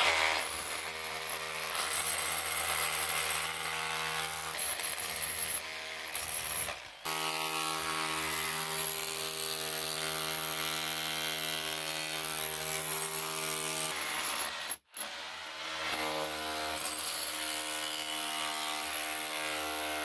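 Ridgid Octane cordless hammer drill running steadily in hammer mode, boring through a poured concrete wall, with a short stop about seven seconds in and a brief dropout around fifteen seconds.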